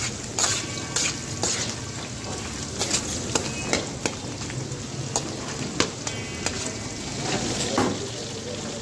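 Chunks of fat or meat sizzling in hot oil in a steel karahi, stirred with a slotted metal spatula that clicks and scrapes against the pan every second or so.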